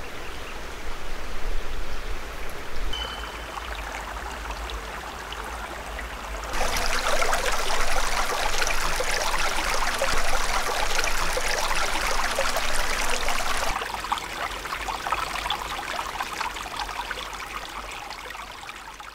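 Small mountain creek running and trickling as a steady rush of water. It gets louder about six seconds in, drops back about fourteen seconds in, and fades out near the end.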